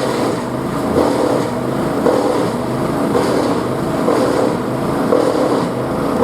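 Wood chipper running: a loud, steady engine drone with small surges about once a second.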